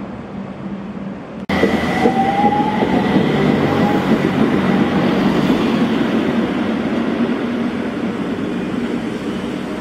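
Utsunomiya Light Rail HU300 low-floor tram pulling away and climbing a ramp, its running noise loud and close with a steady high tone and a slowly rising motor whine. About a second and a half in, the sound jumps from quieter street ambience to the passing tram.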